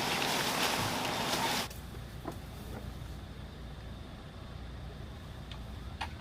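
Loud wind and road noise from a moving vehicle that cuts off suddenly about a second and a half in. A low steady rumble follows, with a few faint clicks.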